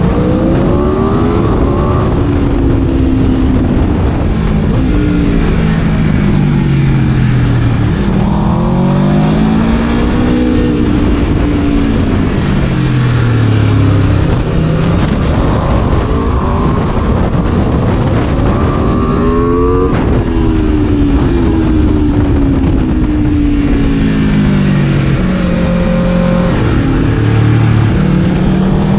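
Aprilia RSV4 V4 sport-bike engine being ridden hard, revving up and down: its pitch climbs and falls several times, with a quick jump in pitch about two-thirds of the way through.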